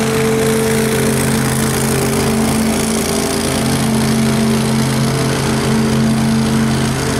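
2010 Scag Tiger Cat zero-turn mower running at a steady, unchanging engine pitch while mowing.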